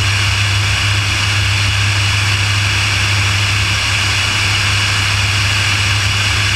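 Air Tractor crop-dusting plane's engine and propeller running at take-off power as it climbs out, a steady loud drone with a rushing haze of noise heard from under the wing.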